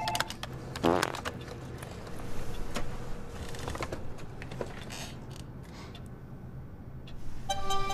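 Quiet indoor room sound with small knocks and rustles, and no clear speech. Music begins near the end.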